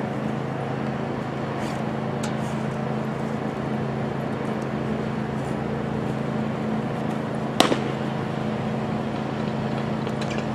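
A baseball pitched at high speed popping sharply into a catcher's leather mitt once, about three-quarters of the way through. A steady low motor hum runs underneath.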